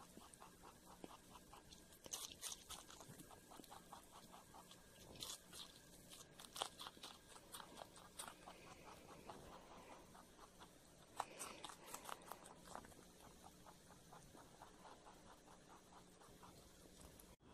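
A pet rabbit chewing a piece of raw red bell pepper held in a hand: faint, quick, steady crunching bites, with a few louder crisp crunches along the way.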